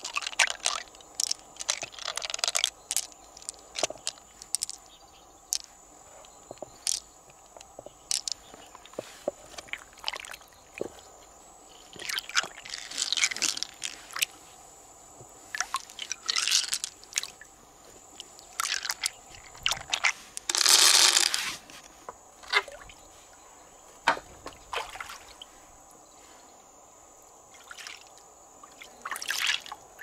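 Pearls clicking against one another and against the mussel shell as hands handle them, mixed with water splashing and dripping as they are rinsed; a louder rush of noise comes about 21 seconds in.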